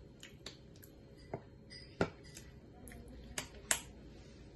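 Sharp clicks and taps from a sauce bottle being handled, about seven in all, the loudest about two seconds in and two close together near the end.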